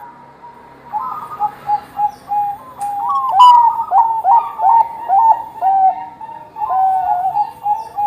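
Zebra dove of the Bangkok perkutut type cooing: a rapid string of short, clear coos that starts about a second in and grows loudest around the middle.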